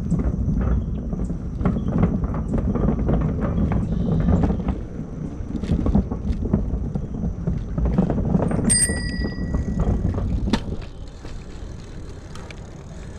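Bicycle ridden along a trail: a steady low rumble and rattle of the ride, which eases off near the end. A bicycle bell rings about nine seconds in.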